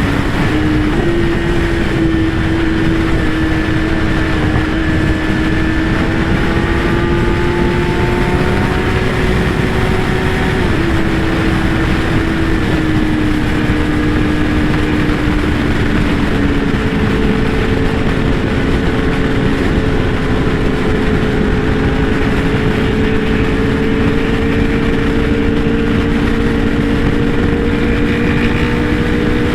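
Kawasaki ZX-10R's inline-four engine running at a steady cruise, heavy wind noise on the microphone. The engine note drops a step about a third of the way in and again shortly after, then holds steady.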